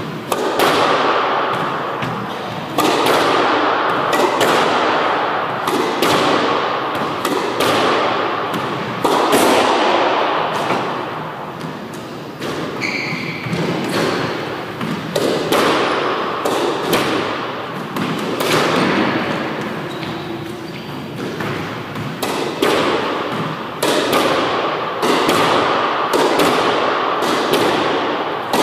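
Squash ball being hit over and over by a racket and striking the court walls in a solo drill, about one stroke a second, each hit echoing in the court.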